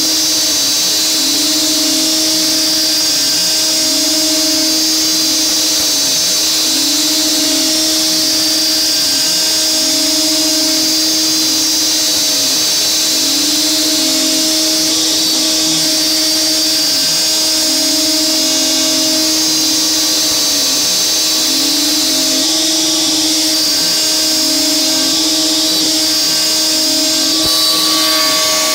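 DeWalt DWP-611 trim router on an XCarve CNC, at speed setting 2, milling 6061 aluminium dry with a 1/8" two-flute carbide endmill on a roughing pass. A steady high whine runs under a lower cutting tone that dips and returns in a regular cycle about every second and a half.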